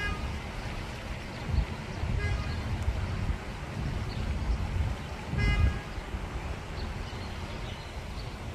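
Wind buffeting the microphone in gusts, with a few short honks near the start, about two seconds in and about five and a half seconds in.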